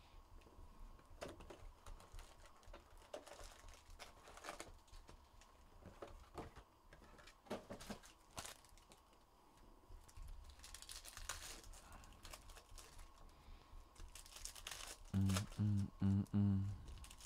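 Foil trading-card pack wrappers crinkling and tearing as packs are handled and opened, with scattered soft crackles. Near the end, music with a low, pulsing bass line comes in.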